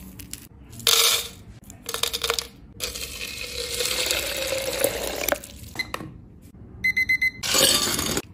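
Dry tea leaves tipped into a glass bowl, rattling twice. Then hot water poured onto the leaves in a glass jug for a couple of seconds, its pitch rising as the jug fills. Near the end, quick ringing clinks of ice in a glass jug and a loud splash of liquid poured over it.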